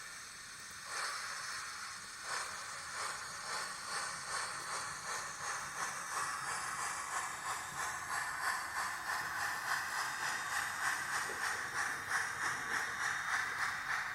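Steam-locomotive exhaust chuffs from the QSI sound decoder in an HO-scale Taiwan Railway DT668 model, played through the model's small speaker. The hissing chuffs speed up steadily as the locomotive gathers speed, from about one a second to about three a second.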